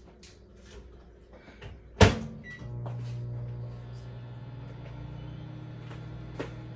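A microwave oven door shut with a sharp knock, a short beep, then the microwave starting and running with a steady low hum, heating a cup of water with boba pearls.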